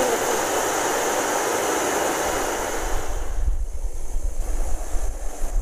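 Steady hiss of a Jetboil gas canister stove burning under a frying pan with a pancake cooking in it. About three seconds in the hiss drops away and wind rumbles on the microphone.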